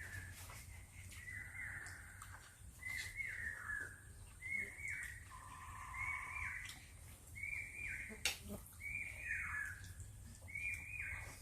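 A bird calling over and over, a short falling call about once a second.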